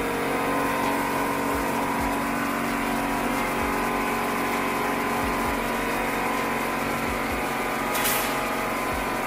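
A motor-driven machine running with a steady drone, with a short burst of hiss about eight seconds in.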